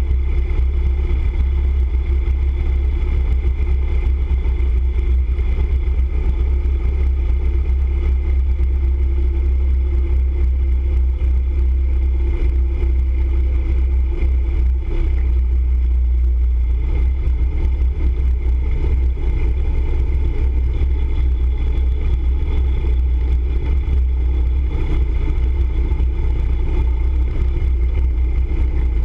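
Motorcycle being ridden at a steady town speed, heard from a camera mounted on the bike: its engine runs evenly under a constant low wind rumble, with no sharp changes.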